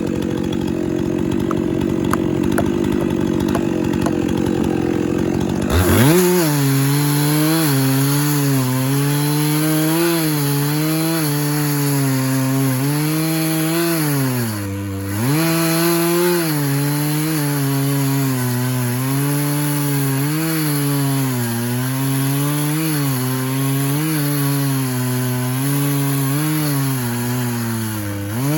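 Stihl MS 400 two-stroke chainsaw running at full throttle in a Granberg chainsaw mill, ripping a cant lengthwise into boards. About six seconds in, the engine note drops abruptly to a lower, labouring pitch under load, which wavers steadily as the cut goes on and sags briefly around halfway and again at the end.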